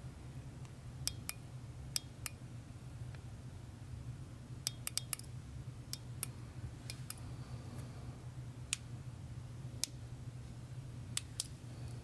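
Faint, irregular sharp clicks and ticks, well over a dozen, scattered over a low steady hum.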